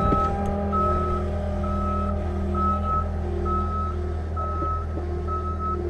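Skid steer backing up, its backup alarm beeping about once a second over the steady running of its engine.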